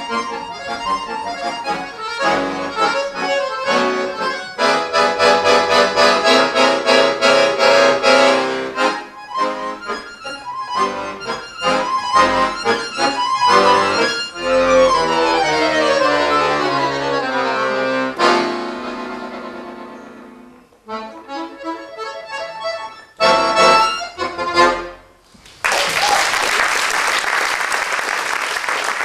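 Excelsior piano accordion playing a fast solo piece: dense chords, quick runs and a long falling run, then a few short loud chords that end it. Audience applause starts a few seconds before the end.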